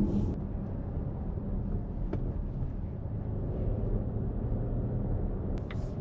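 Steady low rumble of a Volvo V90 Cross Country's tyres and engine heard from inside the cabin while driving, with a light click about two seconds in.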